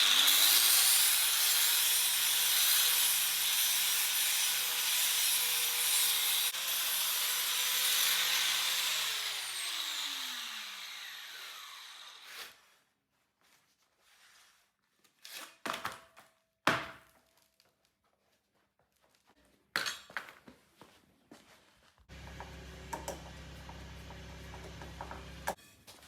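Power saw with a cutting disc cutting through an aluminium BMW BBS alloy wheel. The motor spins up and runs with a loud hiss of cutting for about nine seconds, then winds down, its pitch falling. A few sharp knocks follow, and near the end a steady low hum.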